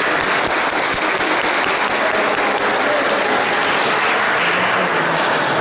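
Audience of seated children applauding, with dense, steady clapping throughout.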